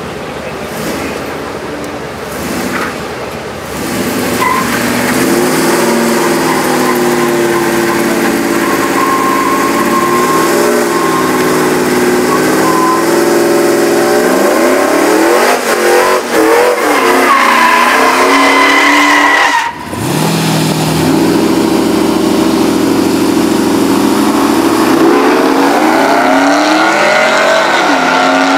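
Ford F-150 SVT Lightning pickup's supercharged V8 revved and held at high revs during a burnout, its rear tyres spinning on the pavement. The engine note rises and falls, breaks off briefly about two-thirds through, then holds high again.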